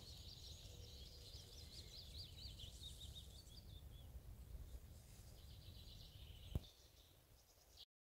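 Young Eurasian wryneck's begging call: a very fast run of thin, high notes, heard twice with a short gap between. A single click about six and a half seconds in.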